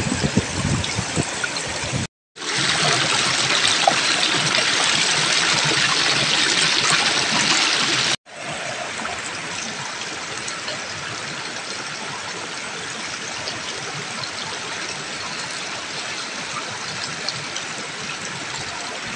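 A shallow stream running over rocks, a steady rush of water. It drops out for a moment about two seconds in, returns louder, cuts again about eight seconds in and carries on a little softer.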